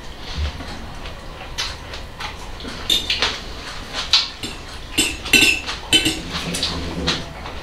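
Metal forks clinking and scraping on ceramic plates of salad: irregular sharp clinks, some ringing briefly, busiest and loudest between about five and six and a half seconds in.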